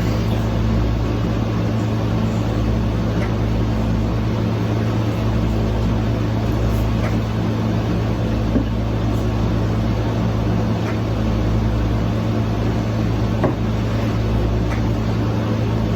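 A steady low machine hum, like a kitchen appliance or fan motor, with a few faint knocks from a spoon stirring masa dough in a bowl.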